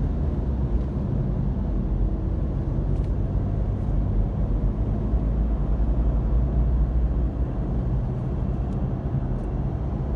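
Steady low rumble of a car driving through a road tunnel: engine and tyre noise heard from inside the cabin.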